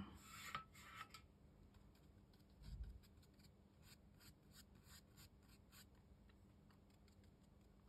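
Faint scratching of a watercolour brush dabbing and working paint into rough handmade cotton rag paper, many short strokes, with a soft low bump about three seconds in.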